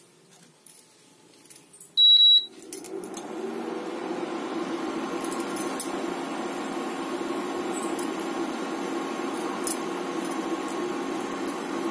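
Prestige induction cooktop giving one short beep as it is switched on, then its cooling fan starting up and running with a steady hum and a faint high whine while the empty kadai heats.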